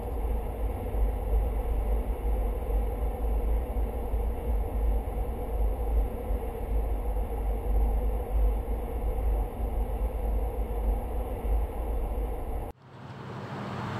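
Steady road and engine noise of a vehicle cruising on a highway, heard from inside the cab, dominated by a low rumble. It cuts off abruptly near the end.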